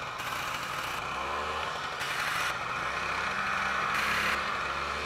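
Two-stroke snowmobile engines running, with a 1969 Sno Jet coming closer. Its engine note rises in pitch more than once and grows louder. Short bursts of hiss are heard at the same time.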